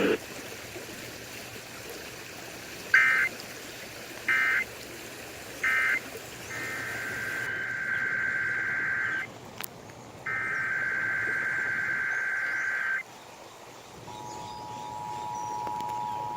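Emergency Alert System digital data tones over radio static: three short warbling bursts of the end-of-message code, then two longer bursts of SAME header data. About fourteen seconds in, the steady two-tone EAS attention signal begins, the 853 and 960 Hz pair.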